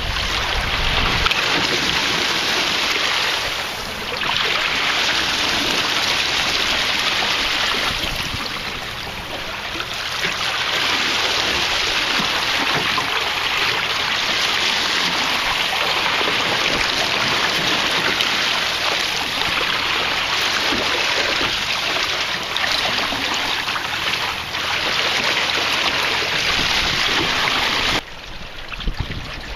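Water rushing and splashing along the hull of a wooden sailing canoe under way through choppy water, with wind on the microphone. The sound is loud and steady, dips briefly twice, and drops suddenly to a quieter rush near the end.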